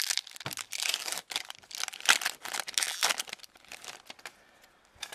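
Foil booster-pack wrapper crinkling and tearing as the pack is ripped open, in quick crackly rustling bursts that die down about four seconds in.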